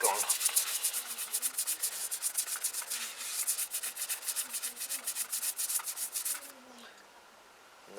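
Rapid back-and-forth rubbing of a fine abrasive on a rust-pitted chrome motorcycle fork tube, testing whether the corrosion will clean up. The chrome is gone beneath the rust. The strokes stop about six and a half seconds in.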